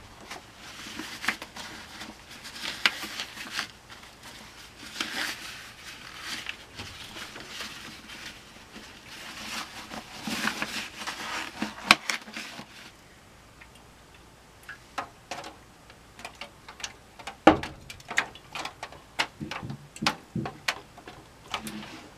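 Rustling of heavy rubber gloves being pulled on and worked over the hands, followed by a run of scattered small clicks and knocks from handling a brush and a metal can over an aluminium foil pan.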